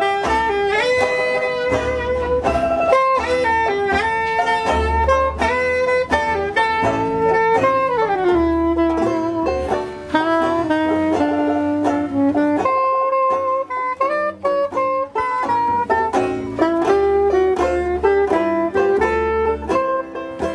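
Small jazz band playing live: a soprano saxophone carries the melody over a banjo and a plucked double bass. The melody falls in a descending run about eight seconds in.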